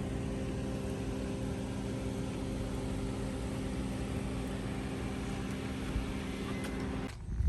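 Steady mechanical hum with several steady low tones over a noise haze, cutting off abruptly about seven seconds in.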